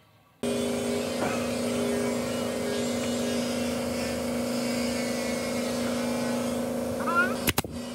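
A machine motor running with a steady, even hum that starts abruptly just under half a second in, with a few sharp knocks near the end.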